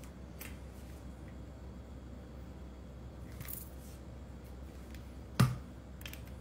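Quiet handling of kitchen things on a countertop: soft rustles and a few faint clicks over a low steady hum, with one sharp knock about five and a half seconds in.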